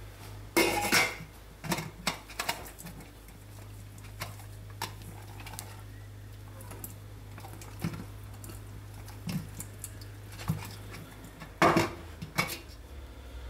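Lidded stainless steel pot of boiled octopus and potatoes being shaken to toss the contents: scattered clinks and knocks of the lid against the pot, the loudest about a second in and near the end, over a steady low hum.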